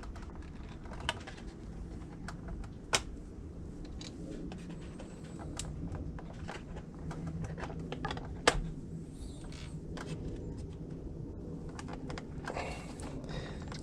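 Scattered sharp plastic clicks and taps as gauge needles are pried off a 2005 Nissan Quest instrument cluster, over a low steady hum.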